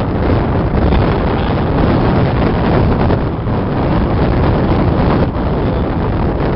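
Strong wind buffeting the microphone: a loud, steady rumble of wind noise.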